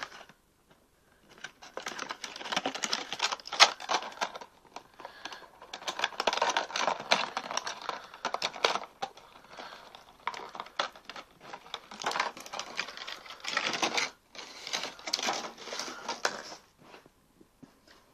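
Clear plastic clamshell packaging crinkling and crackling as earbuds are pulled out of it by hand, in irregular bursts with short pauses.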